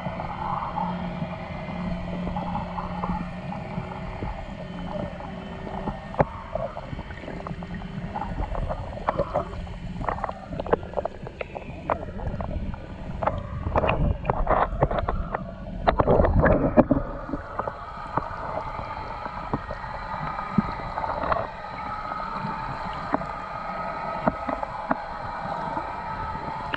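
Muffled underwater sound picked up by a camera held beneath the river's surface: a steady gurgling wash with a faint low hum. Through the middle comes a run of sharp knocks and bubbling.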